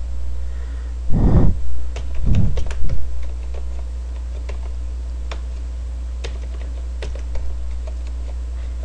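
Computer keyboard keys typed in irregular, scattered clicks while a password is entered. Two short low sounds come in the first three seconds, over a steady low hum.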